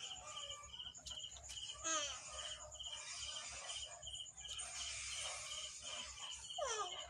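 Cricket chirping steadily in short pulses, about three a second. Short falling vocal sounds come through briefly about two seconds in and again near the end.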